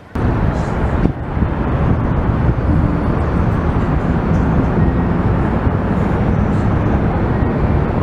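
Loud, steady outdoor rumble and hiss, heaviest in the low end, starting suddenly just after the start.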